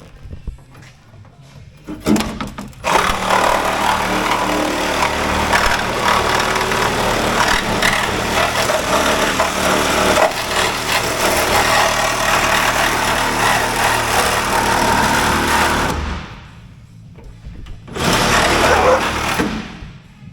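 Angle grinder cutting through the car's sheet-metal body: a long, loud cut that starts about three seconds in and stops about thirteen seconds later, then a second short cut near the end.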